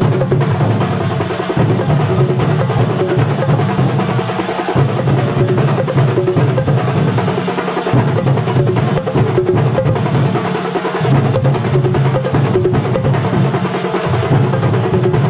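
Kerala chenda drum ensemble playing a fast, dense rhythm of rapid strokes, with a deep low drum part that cuts out and comes back every few seconds.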